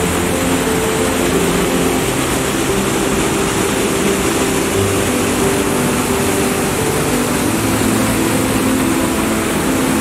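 Loud, steady rushing of white water tumbling and churning over rocks at a waterfall, heard close up.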